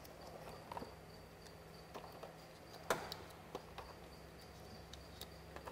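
Faint, scattered clicks and taps of small tire pressure sensors being handled in their clear plastic blister tray, the sharpest about three seconds in, over a faint steady hum.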